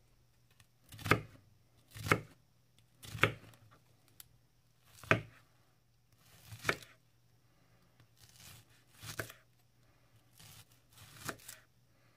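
Böker Outdoor Cuisine III santoku knife slicing a red onion on an end-grain wooden cutting board: a slow series of single cuts, about one a second with uneven gaps, each a short crunch of the blade through the onion ending in a tap on the board.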